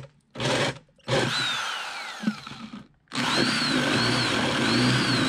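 Corded electric drill boring through plywood with a 1-inch spade bit. A short burst is followed by the motor's whine falling as it spins down. About three seconds in it runs again steadily, its pitch rising and dipping as the bit cuts.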